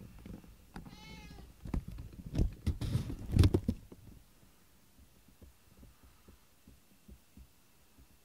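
A cat gives one short, high meow, then about two seconds of dull thumps and knocks, followed by only faint scattered ticks.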